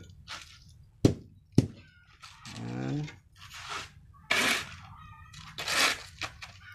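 A shovel scraping across a concrete floor three times while gathering concrete mix for the block mold, after two sharp knocks about a second in. A short vocal sound that bends in pitch comes just before the scraping.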